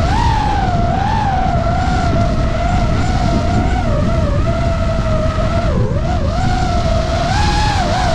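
DJI FPV drone's motors and propellers whining, the pitch wavering up and down and dipping sharply about six seconds in, heard from a camera mounted on the drone over heavy wind rush.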